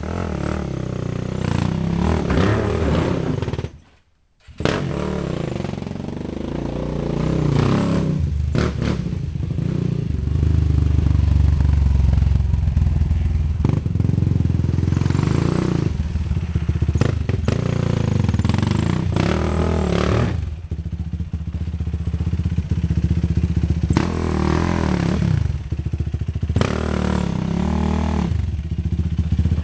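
Yamaha YFZ450 quad's single-cylinder four-stroke engine running, with repeated throttle blips and revs that rise and fall. The sound cuts out briefly about four seconds in.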